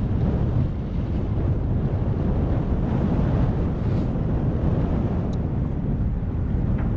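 Strong wind buffeting the microphone on a boat's deck, a steady low rumble.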